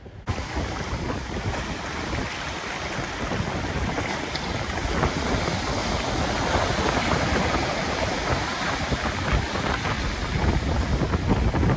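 Rough, storm-driven surf breaking and washing up a beach, mixed with strong wind buffeting the microphone.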